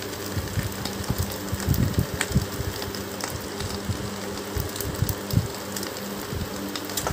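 A steady low mechanical hum, like a fan motor, under soft bumps and rustles as whole green chillies are laid by hand on spice-coated eggs on a banana leaf.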